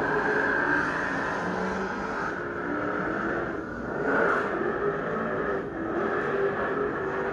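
Car engine running and revving, muffled, from a film playing on an exhibit display screen and heard through its speaker.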